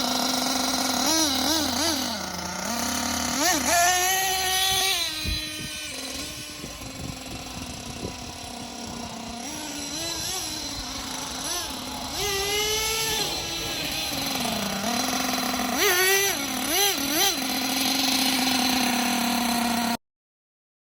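Two-stroke nitro engine of a Losi LST RC truck running, blipped again and again so its pitch rises and drops back to a steady idle between blips, while the carburetor is being tuned. It cuts off suddenly near the end.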